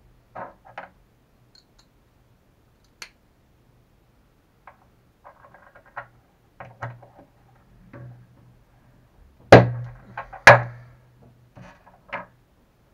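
Pliers and small plastic and metal RC shock parts clicking, tapping and clattering against a workbench during shock assembly, with two loud sharp knocks about a second apart a little past two-thirds of the way in.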